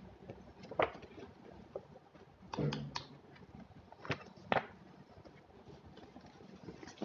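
Handling of a school folder, books and a fabric backpack: scattered rustles and light knocks of paper and card, a few seconds apart.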